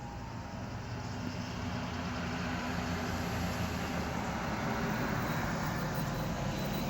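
A car passing on a nearby road: tyre and engine noise swelling gradually to a peak about five seconds in, then starting to fade.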